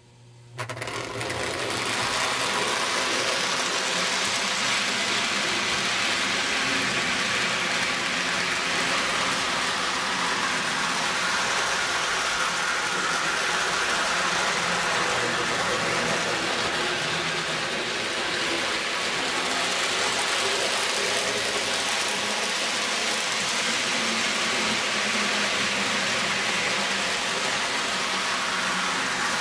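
Marx toy train running: the custom cab-forward 4-6-6-4's electric motor and gears whirring, its rear motor free-wheeling, with the wheels of the engine and freight cars rolling on the track. The steady mechanical whir comes in suddenly about half a second in and holds.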